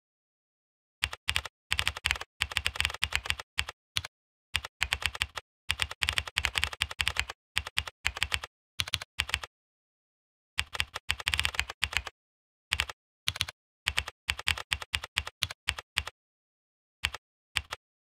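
Typing on a computer keyboard: bursts of rapid keystrokes with short pauses between them, starting about a second in.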